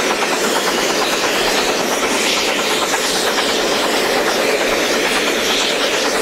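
Steam-hauled train running at speed, heard from an open carriage window: a steady loud rush of wind and wheels on the rails with a fast, even rhythm from the Stanier 8F steam locomotive's exhaust beats.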